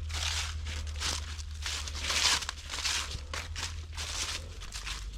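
Footsteps crunching through dry fallen autumn leaves on a woodland trail at a steady walking pace, one crunch about every half second.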